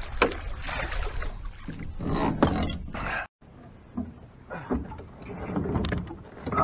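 Water splashing and churning as a large blue catfish thrashes in a landing net beside a small boat. About three seconds in, the sound breaks off and gives way to quieter knocks of the net and fish against the boat.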